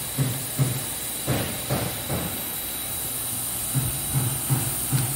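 Steady hiss with a string of short, soft low thuds, about nine in all, bunched in two groups: one group in the first couple of seconds and another near the end.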